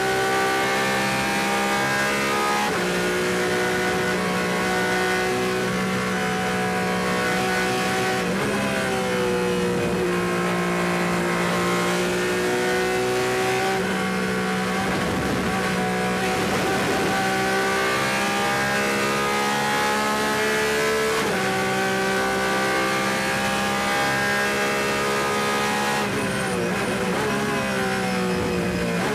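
Porsche 911 RSR's naturally aspirated flat-six race engine heard from the cockpit, running hard at high revs. The pitch holds nearly steady for long stretches, with a few brief dips and steps as gears change.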